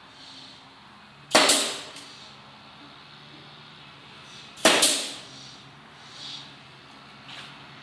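Brad nailer firing twice, about three seconds apart, each a sharp crack as it drives a brad into the wood, with a couple of fainter knocks after.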